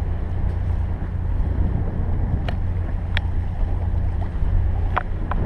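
Steady low rumble of wind buffeting the microphone aboard a sailing catamaran under main sail, with a few light clicks about halfway through and near the end.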